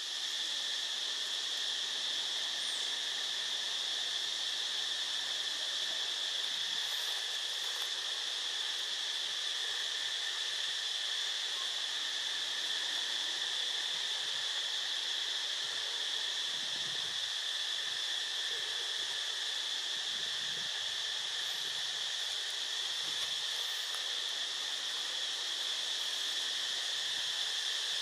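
Steady, unbroken high-pitched drone of an insect chorus in forest trees.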